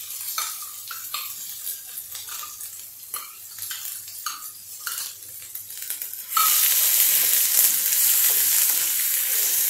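Light taps and scrapes as onion, coconut and garlic masala paste is knocked out of a steel cup into hot oil. About six seconds in, a loud, steady sizzle starts as the paste is pressed into the oil and stirred with a spatula.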